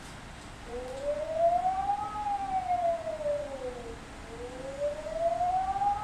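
Singapore Public Warning System Alarm signal: a wailing siren tone that rises for about a second and a half and falls for about two, twice over. It is the signal to move to a shelter immediately.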